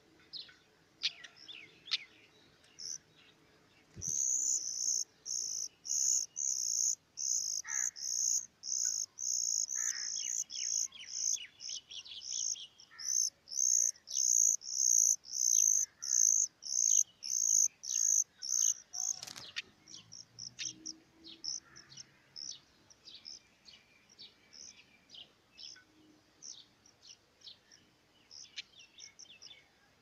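Nestlings begging for food with a fast run of loud, high-pitched calls, about two a second, while a parent bird is at the nest feeding them. The run starts about 4 s in and stops abruptly with a short rustle about two-thirds of the way through, leaving fainter scattered chirps.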